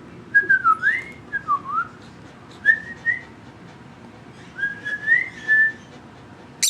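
A pet bird whistling from another room: three short phrases of clear, sliding whistled notes with pauses between them.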